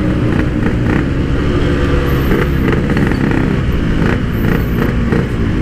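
Yamaha RX-King 135cc two-stroke single running under way through a freshly repacked PK1 'power' exhaust, a steady, soft note that rises and falls slightly in pitch with the throttle.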